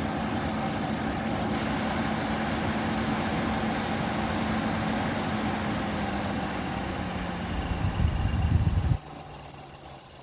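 Mila air purifier's fan running with a steady rushing hum, the weird sound the unit is making. The hum drops in pitch about six seconds in, a rough low rumble swells near eight seconds, then the sound cuts sharply to a much quieter, lower hum about nine seconds in.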